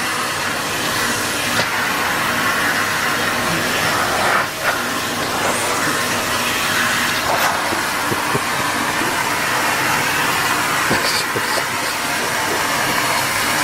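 Vacuum cleaner running with a steady whooshing hiss and a few faint knocks; the noise dips briefly about four seconds in.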